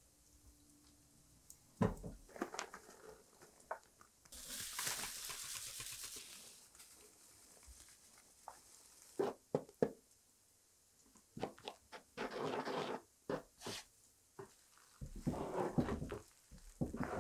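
Flour poured into a wooden dough trough, a soft hiss for about two seconds, after a single knock. Then a wooden spoon knocking and scraping through the crumbly flour-and-liquid mixture as the bread dough is stirred in the trough.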